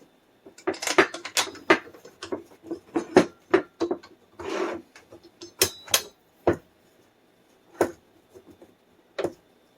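Hard parts and screws being handled and set down during assembly: a string of clicks and knocks, with a short rubbing scrape about four and a half seconds in.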